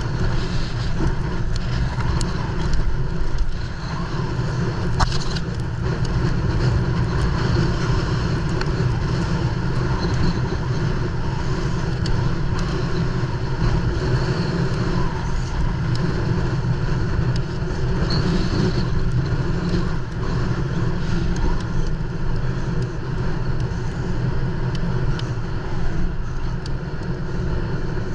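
Mountain bike descending at speed, heard through a GoPro: a steady rush of wind on the microphone and tyres rolling over rough ground, with small rattles and clicks from the bike.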